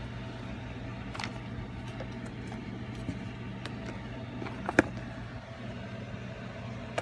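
A steady low hum under a few light clicks and taps from handling the phone and its packaging; the sharpest click comes just before five seconds in.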